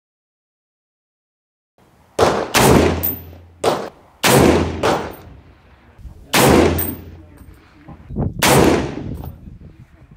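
Springfield Armory M1A semi-automatic rifle firing .308 Winchester rounds, after about two seconds of silence: four loud shots roughly two seconds apart with echoing tails, plus a couple of fainter bangs. Short high metallic clinks follow several of the shots.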